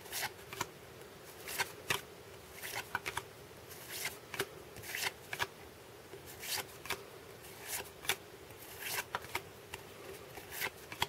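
Baseball trading cards being flipped through by hand, each card slid off the stack with a short, soft swish of card stock at an uneven pace, roughly one or two a second.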